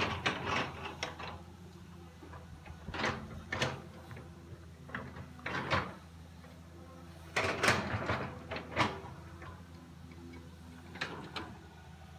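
Excavator's diesel engine running steadily at low revs, with irregular sharp knocks and clunks over it, loudest a little past halfway.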